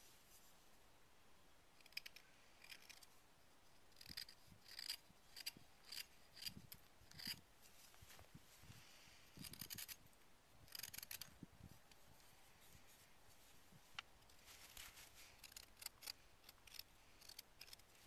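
Knife carving a green trembling aspen spoon blank: faint, short slicing and shaving strokes in quick irregular clusters, with brief pauses between them.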